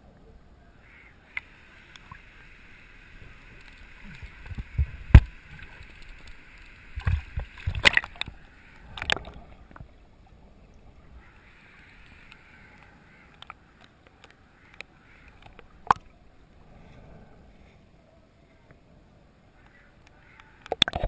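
Muffled underwater sound of a snorkeler swimming with the camera: water moving around the microphone and a steady hiss for several seconds at a time. Several sharp knocks cut through, the loudest about five seconds in and a cluster a few seconds later.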